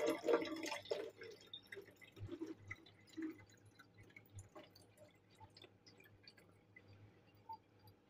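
Water poured from a stainless steel cup into a small plastic reservoir bottle, splashing loudly for about the first second, then thinning to a quiet trickle with scattered drips.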